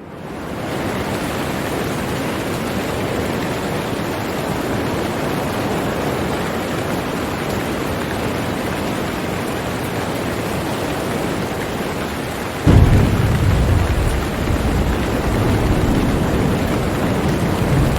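Steady heavy rain hiss, fading in at the start; about two-thirds of the way through a loud, deep rumble of thunder breaks in suddenly and keeps rolling under the rain.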